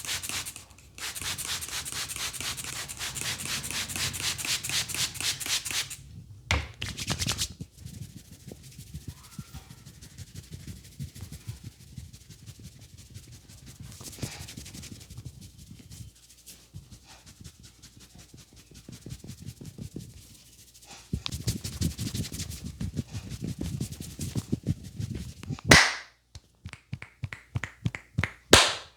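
Head massage: hands rubbing briskly over hair and scalp in rapid strokes, in two loud spells with fainter rubbing between, then a run of separate sharp hits near the end.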